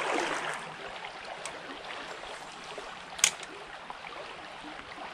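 Shallow creek water running over riffles, a steady rushing sound, with a short sharp click about three seconds in.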